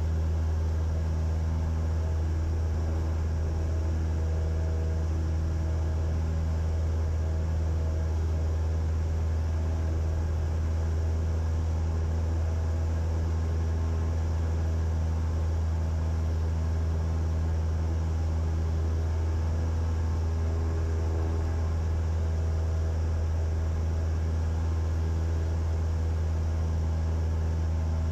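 Cessna 172's piston engine and propeller at climb power, heard from inside the cockpit: a steady low drone that holds one pitch.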